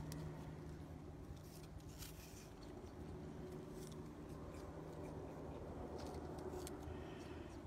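Faint, irregular crisp clicks as a common brushtail possum bites and chews a piece of apple, over a low steady hum.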